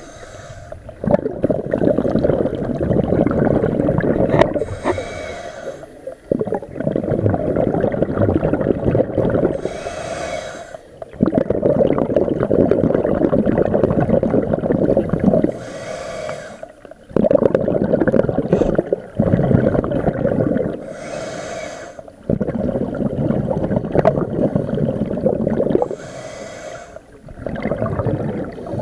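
Scuba regulator breathing heard underwater: a short hiss of inhalation, then a long bubbling rumble of exhaled air, repeating about every five to six seconds.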